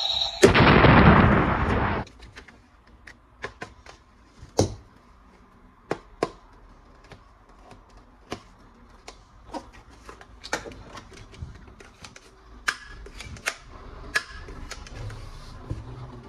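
Plastic toy guns being handled and assembled: many sharp, irregular clicks and snaps of plastic parts. They follow a loud noisy burst about half a second in that lasts roughly a second and a half.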